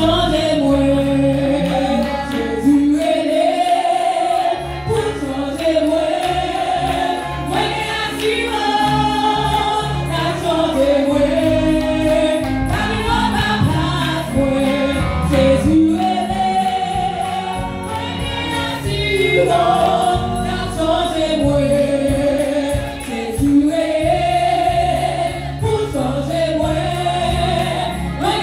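Women's worship team singing a gospel praise song together into microphones, amplified through the sound system over steady low bass notes and a beat.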